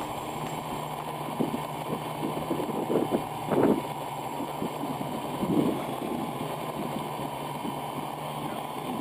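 Quadcopter's electric motors and propellers running at a steady hover hum, holding position in a breeze. A few louder gusts of wind hit the microphone along the way.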